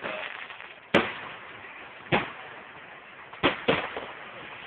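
Fireworks going off: four sharp bangs over a steady hiss, the loudest about a second in, another about two seconds in, and a quick pair near the end.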